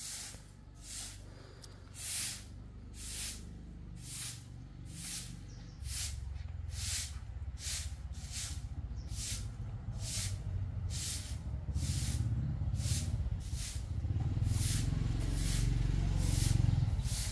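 Grass broom sweeping a concrete floor: a steady run of short swishes, about one a second. A low rumble underneath grows louder from about six seconds in.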